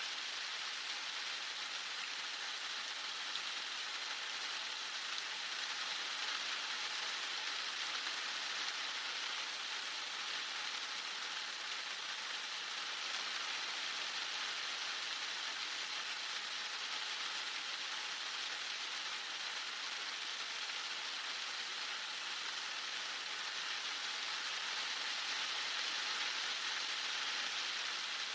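Heavy rain falling steadily on surfaces, an even, unbroken hiss.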